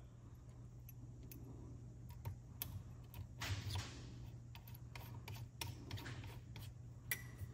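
Light clicks and rustling of small metal SU H1 carburetor parts being handled and fitted together by hand. The clicks are faint and scattered, with a brief rustle in the middle.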